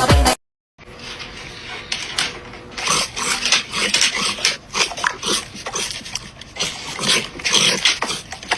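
A dog making many short, irregular sounds, some briefly pitched, starting about a second in.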